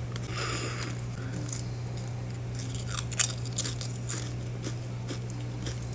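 A person eating chips from a snack bag: a short rustle near the start, then a few sharp crunches about three seconds in, over a steady low hum.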